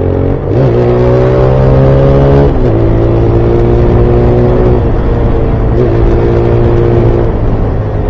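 Motorcycle engine pulling under way, its note climbing steadily and dropping sharply at each gear change, three times.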